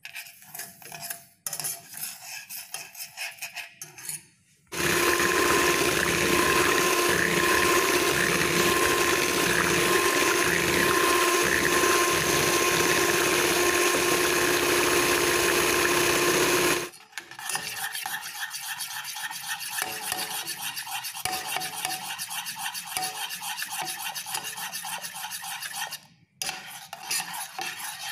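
A spoon scraping and stirring sugar around a pan as it is browned to caramel, in quick rhythmic gritty strokes. For about twelve seconds in the middle a loud, steady noise with a constant hum through it drowns the stirring, then the scraping strokes return.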